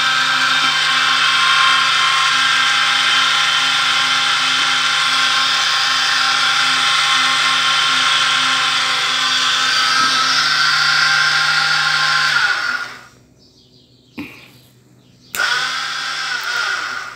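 Small 12 V DC electric motor driving a heavy gear reducer, running with a steady high whine. About twelve and a half seconds in it is switched off and winds down; a sharp click follows, then it runs again for about a second and a half and winds down once more.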